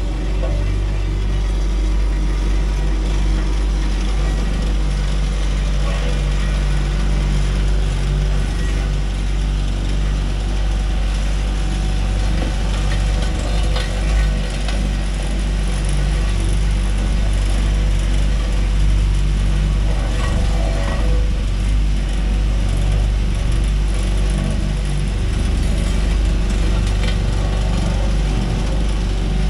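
Caterpillar 289D3 compact track loader running steadily: a constant mechanical machine noise over a strong low engine hum.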